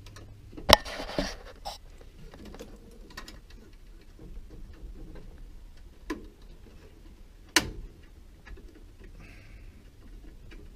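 Plastic wire-harness connectors being handled and pushed into the plastic housing of a washer's control board: a few sharp clicks and snaps, the loudest about a second in and two more near the end, with faint rustling of wires between.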